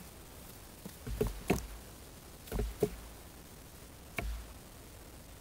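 A handful of irregular knocks and clicks with dull thumps, scattered over a few seconds: fishing gear and the slingshot's reel being handled close to the microphone.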